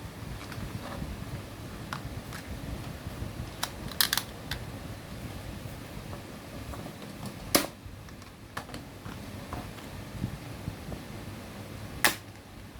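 Plastic soft-bullet toy gun being worked and fired: sharp clicks, a quick cluster about four seconds in and single loud ones about seven and a half and twelve seconds in, with smaller ticks between, over a low rumble.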